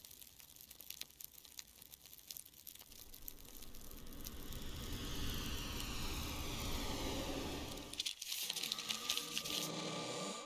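Title-sequence sound effects: dense crackling and crinkling, swelling into a whooshing rush in the middle over a low rumble, with a held tone coming in near the end.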